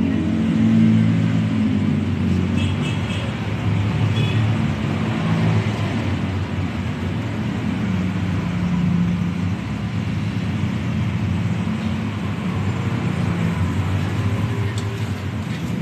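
Road traffic noise: vehicle engines running and passing, with a few short high beeps about three and four seconds in.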